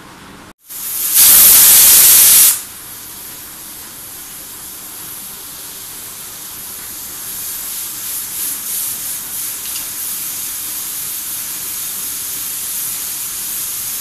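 Aluminium stovetop pressure cooker venting steam through its weight valve, a sign that the cooker has come up to pressure. About a second in there is a loud blast of hissing steam lasting just over a second, then a quieter steady hiss that flutters for a while in the middle.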